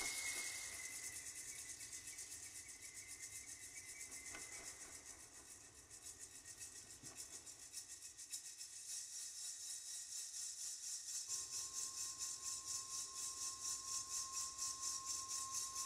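Faint meditation soundtrack: a soft, quick rattling hiss pulsing several times a second, dipping and then growing louder in the second half. A steady high tone comes in about eleven seconds in.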